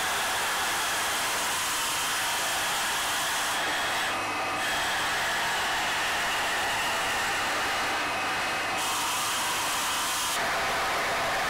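Stone-carving machines running in a workshop: a steady whirring hiss whose high part drops out briefly about four seconds in and again around eight seconds.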